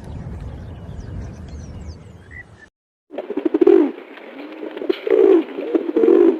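Bird calls in two parts. First a few faint, high chirps over a low rumble. Then, after a sudden cut, loud low cooing calls repeated in pulses.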